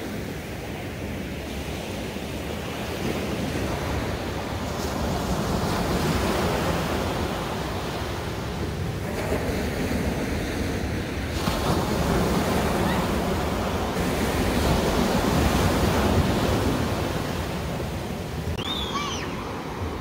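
Ocean surf breaking on a sandy beach, the wash rising and falling as each wave comes in.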